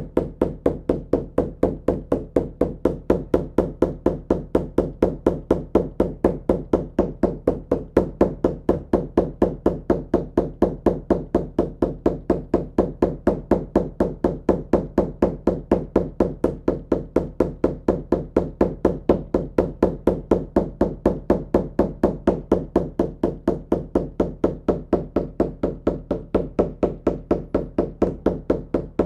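Shamanic journey drum beaten in a steady, unbroken beat of about four strokes a second, the even repetitive drumming used to carry listeners into a meditative journey.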